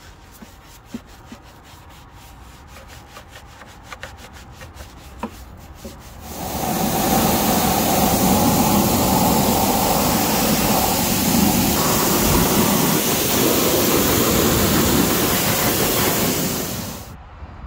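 A brush scrubbing foam over a lawn mower's engine in quick, repeated strokes. About six seconds in, a pressure-washer jet starts spraying the mower's grass-caked underside with a loud, steady hiss of water that cuts off suddenly near the end.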